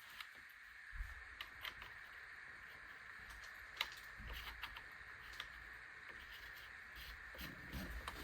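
Faint, scattered clicks and light taps of a muzzle brake being handled and screwed onto the threaded barrel of an airsoft shotgun, over a faint steady hiss.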